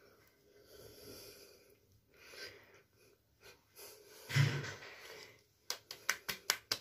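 Fingertips patting face cream into the skin: a quick run of light taps, about seven a second, starting near the end. Before it come soft breathing sounds and one stronger breath.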